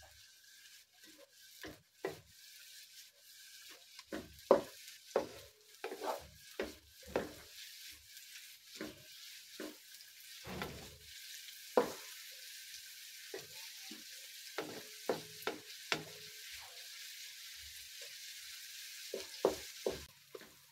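Sliced onions frying in oil in a nonstick wok: a steady sizzle that grows louder in the second half, with a wooden spatula scraping and knocking against the pan many times as they are stirred.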